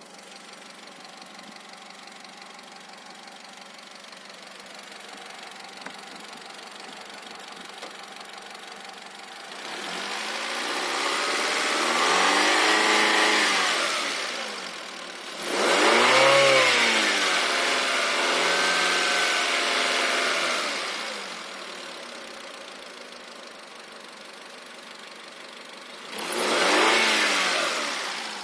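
Car engine idling with a knock, then revved three times: a slow rise about ten seconds in, a quick blip held for several seconds around the middle, and a short blip near the end. The owner is unsure whether the knock is rod knock or valves that need adjusting.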